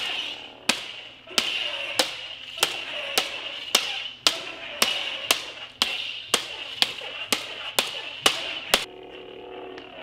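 Polycarbonate lightsaber blades clashing hard, blade on blade, in a fast run of about seventeen sharp hits, roughly two a second, that stops about a second before the end.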